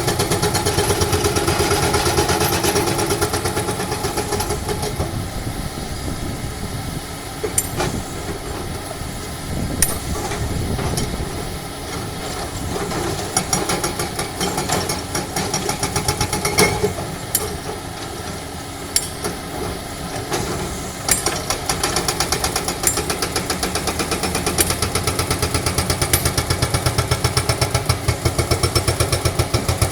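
Excavators breaking rock: diesel engines running with a rapid, even pulsing that is stronger at the start and again near the end. Several sharp knocks of steel on rock stand out in the middle.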